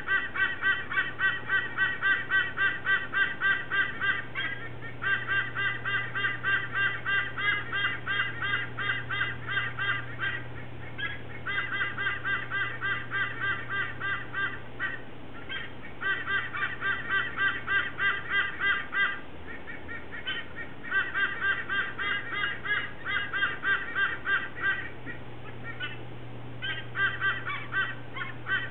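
White-bellied sea eagle calling: a rapid run of honking notes, about three a second, repeated in bouts of three to five seconds with short pauses between them.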